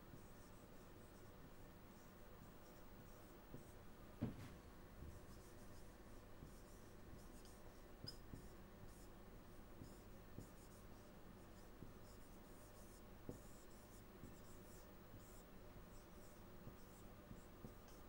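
Marker pen writing on a whiteboard: faint, short scratchy strokes one after another, with a single knock about four seconds in.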